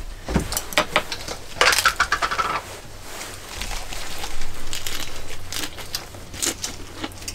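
Eating a lettuce-wrapped bite of grilled pork: crisp crunching and small clicks of chopsticks and dishes, over the sizzle of pork on a tabletop griddle.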